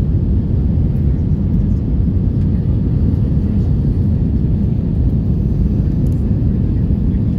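Steady low rumble of an Airbus A320 heard from inside the passenger cabin during its landing.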